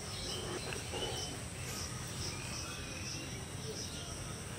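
Background of high chirping: a short chirp repeating regularly under a steady high hiss, with a few faint bird calls.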